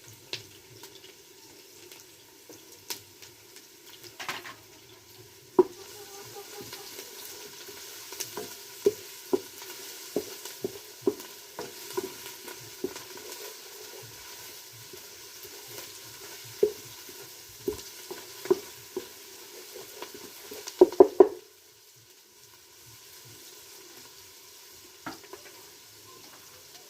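Garlic and ginger frying in a cooking pot with a steady sizzle, stirred with a spoon that knocks and scrapes against the pot. A quick run of loud knocks comes about twenty seconds in, after which the sizzle is quieter.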